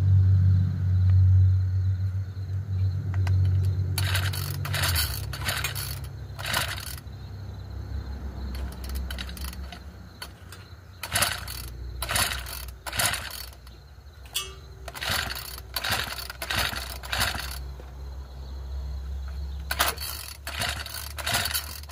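Craftsman 25cc mini cultivator being pull-started: four rounds of quick starter-rope pulls, each a short rasping whir with clicks, and the engine does not catch. A steady low drone in the first five seconds stops suddenly.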